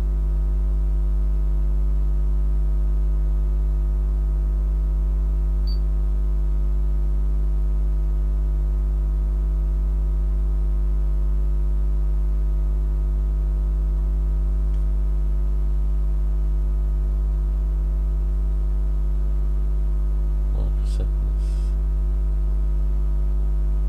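Steady, loud 50 Hz mains hum: a low electrical hum with a buzzy edge from its overtones, unchanging in level.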